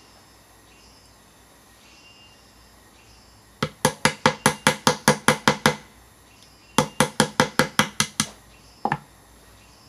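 Rapid tapping on the rolled zinc wick holders set in holes along a hollow bamboo tube, seating them tight: two runs of quick sharp knocks, about six a second, a pause of about a second between them, and a last pair near the end.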